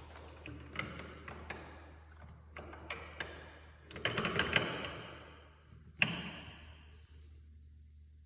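Sharp metal clicks and taps as a tool is worked against a door hinge to drive its pin in: a scattered handful, a quick cluster about four seconds in, and a single sharp click about six seconds in.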